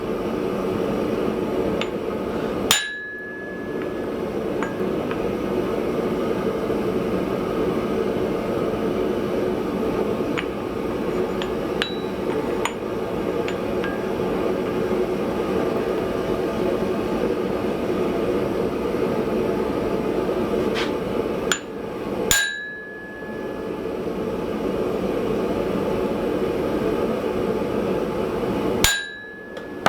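Three sharp hammer strikes on a steel anvil, each ringing briefly, spread far apart, with a few light taps between them, over the steady roar of a lit forge.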